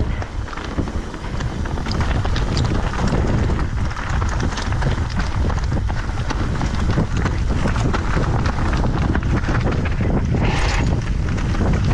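Mountain bike riding down a rough trail: tyres rolling over gravel and the bike rattling and knocking over bumps, with wind rushing over the microphone. A brief hiss about ten and a half seconds in.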